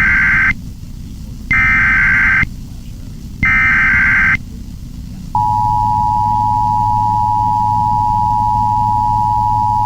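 Emergency Alert System SAME header: three short bursts of warbling digital data tones, about a second each and a second apart, encoding a 911 Telephone Outage Emergency. About five seconds in, the steady, piercing EAS attention tone begins.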